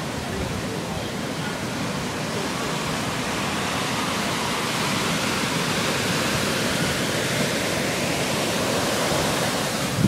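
Ocean surf breaking and washing up a sandy beach: a continuous rushing hiss that slowly swells louder through the middle and eases near the end.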